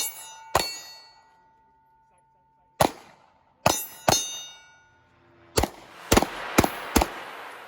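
Pistol shots, about nine in uneven groups, with steel targets ringing after the hits.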